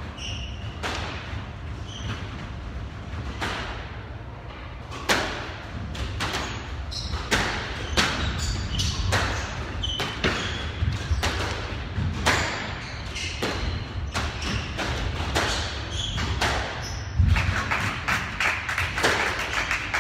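A squash rally: the ball cracks off rackets and walls in quick, irregular hits, about one every half second to a second, with short high squeaks of court shoes on the wooden floor.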